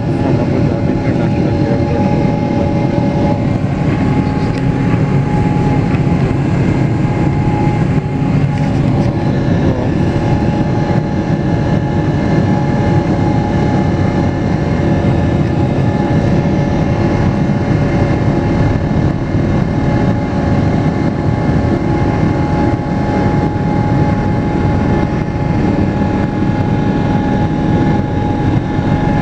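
Airbus A340 jet engines running steadily, heard from inside the passenger cabin as the airliner rolls on the ground: a dense low rumble with a steady whine of several tones.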